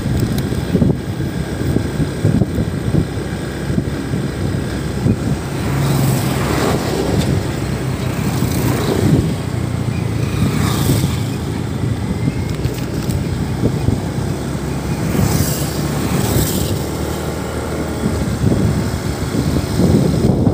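Motorcycle running at road speed: a steady low engine hum under heavy wind and road noise on the microphone, with a few brief louder swells.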